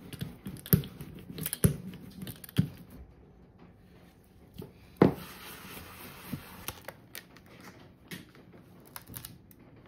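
Small hand ink roller (brayer) rolling across a crinkled aluminium-foil litho plate, giving irregular crackling clicks for the first few seconds. A single sharp knock comes about five seconds in, then scattered light crinkles as a paper print is peeled off the foil.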